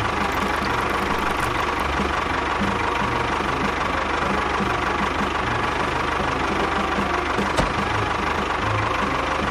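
A motor running steadily with a pulsing low throb, with one sharp click about three quarters of the way through.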